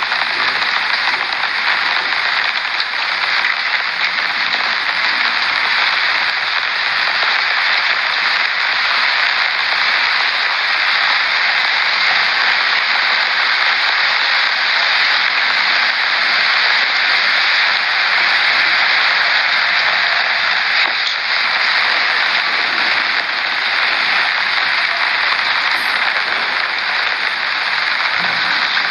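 Heavy rain and strong storm wind: a steady, loud hiss that never lets up.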